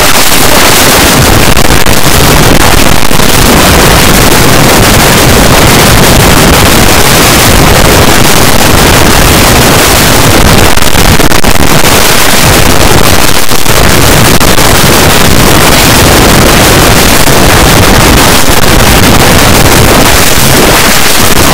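Deliberately overdriven 'earrape' audio, clipped at full volume into a steady wall of harsh distorted noise with no clear pitch or melody.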